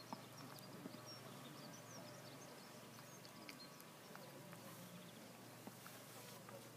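Near silence: faint outdoor ambience with scattered, brief chirps of small birds and a few soft ticks.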